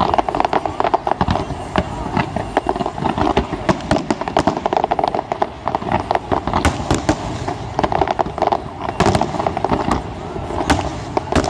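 Fireworks display: a fast, dense run of cracks and bangs from many shells bursting at once.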